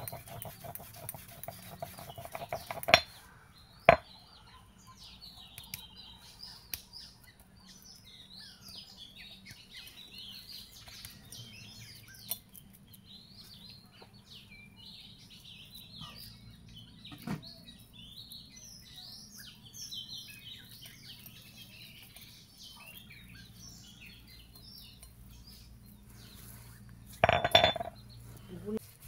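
A hand stone scraped back and forth over a wet paste on a flat stone grinding slab, then knocked sharply against the slab twice, about three and four seconds in. Small birds chirp through the middle, with a single knock later and a short loud burst near the end.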